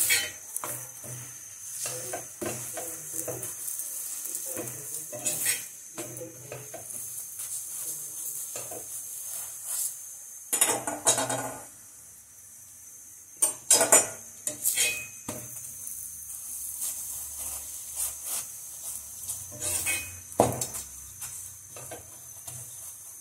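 A steel perforated spoon clinks and scrapes on an iron tawa while a spinach paratha sizzles on it. Under the steady sizzle there are repeated small knocks, with a few louder clatters in the middle and near the end.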